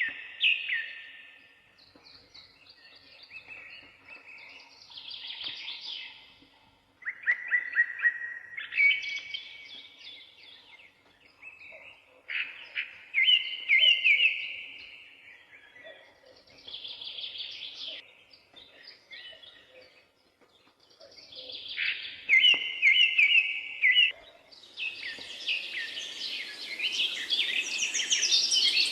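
Songbirds singing in separate short phrases, many of them quick trills, with brief pauses between phrases. A steady hiss joins in under the song near the end.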